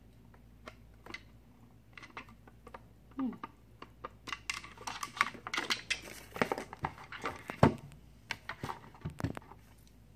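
Handling noise from a plastic nail drill control box: scattered clicks, taps and knocks as it is turned over in the hands and put down on the table, busier in the second half, with one louder knock about three-quarters of the way in.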